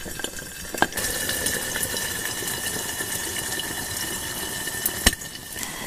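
An egg frying under the lid of a small stone-coated pot: a steady, muffled sizzling hiss. There is a short knock about a second in and a sharp clink near the end.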